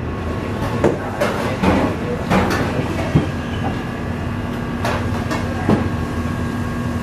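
Steady rumbling room noise with scattered light knocks and clicks as a cardboard milk carton is handled and milk is poured into a stainless-steel bowl on a kitchen scale. A low steady hum joins about halfway through.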